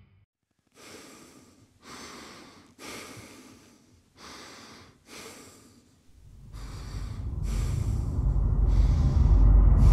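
Sound-designed soundtrack effects: five short breathy hisses about a second apart, then a low rumble that swells steadily louder from about six seconds in.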